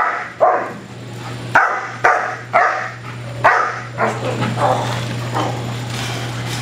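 Black German Shepherd protection dog barking sharply at a decoy, about six barks in the first three and a half seconds. After about four seconds, as the dog goes for the decoy, the separate barks give way to a steadier rough noise. A steady low hum runs underneath.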